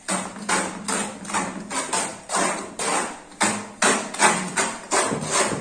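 Steel trowel slapping and scraping through wet cement mortar in a metal mortar pan as it is mixed, in quick strokes about three a second.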